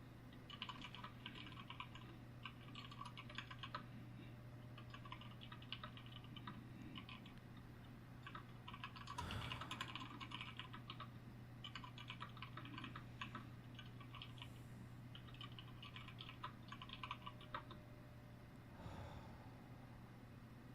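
Typing on a computer keyboard: runs of quick keystrokes in bursts with short pauses, with a brief soft whoosh about nine seconds in and again near the end, over a faint steady hum.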